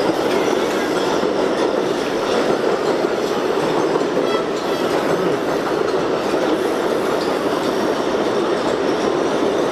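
A loud, steady rumble of an elevated subway train running along the steel structure overhead.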